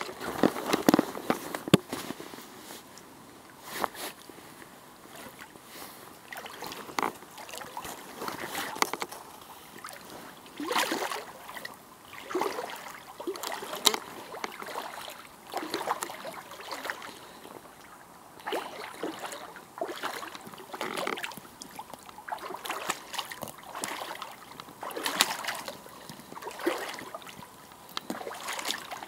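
Boots wading through shallow muddy water: irregular splashing and sloshing with each step, a step every second or two, loudest in the first couple of seconds.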